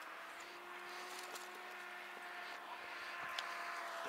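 A distant engine drone, a steady hum of several tones whose pitch slowly sinks while it grows a little louder, as of a motor passing at a distance.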